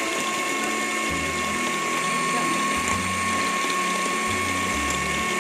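Electric hand mixer running steadily, its twin beaters whipping instant coffee, sugar and hot water in a ceramic bowl: an even motor whine.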